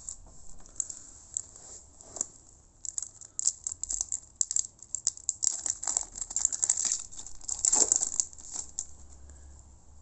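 Foil wrapper of an NBA Hoops trading card pack crinkling and tearing as it is ripped open by hand: scattered crackles from about three seconds in that grow dense and loudest near eight seconds, then die away.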